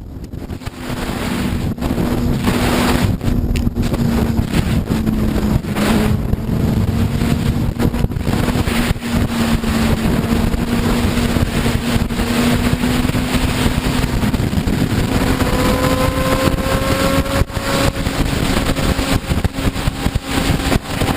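Motorcycle engine running at a steady speed under heavy wind rush on the microphone, its pitch creeping slowly upward in the second half.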